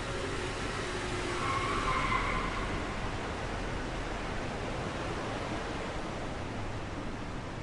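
Steady rush of running water, an even hiss with no break, with a faint brief tone rising out of it about two seconds in.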